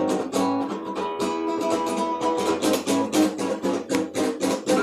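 Guitar strummed in a steady, quick rhythm of chords.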